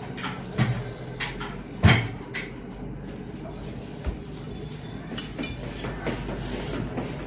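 Dishes and cutlery knocking and clinking as people eat: a handful of sharp taps and clacks, the loudest about two seconds in, then a few lighter clicks over a quiet background.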